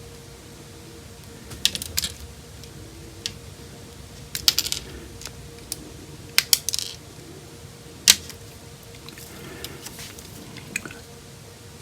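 Small plastic model-kit parts being snipped from the sprue with nippers and handled: scattered sharp clicks and snips, about half a dozen in all.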